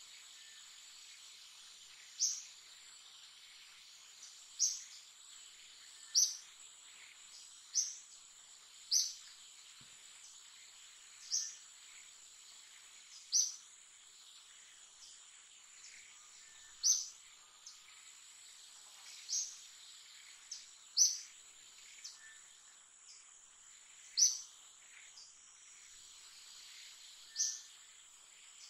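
Steady high-pitched insect drone with a short, sharp, high call from an animal repeated about a dozen times, roughly every two seconds.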